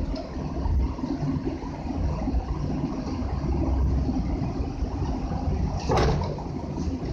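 Vintage Singer sewing machine running, a steady low mechanical rumble, with a sharp click about six seconds in.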